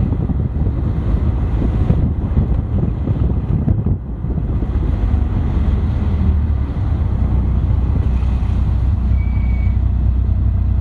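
Caterham Seven's engine running at low speed, heard from on board the open car with wind buffeting the microphone. About four seconds in, the gusting eases and the engine settles into a steady low drone.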